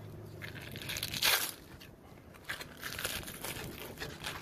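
Rough triggerfish skin being torn back off the fillet by hand, gripped in a paper towel: several tearing, crinkling rasps, the loudest about a second in.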